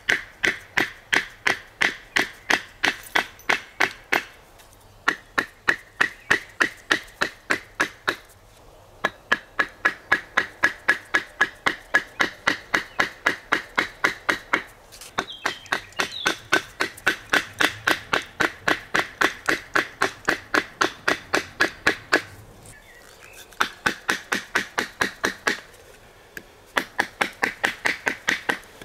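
Knife being batoned with a green wooden stick: quick, even knocks on the blade's spine, about three or four a second, in runs of several seconds with short pauses between. The blade is being driven into a softwood board to cut out the waste wood between saw-cut slots.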